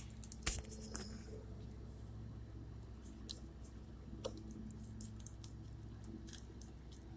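Faint, irregular clicks and taps from hands working a loose electrical connector in a motorcycle's fuel pump wiring, over a low steady hum.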